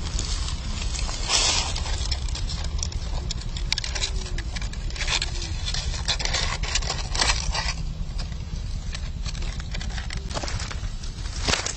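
Dry leaves and grass rustling and crackling in irregular bursts, over a steady low wind rumble on the microphone.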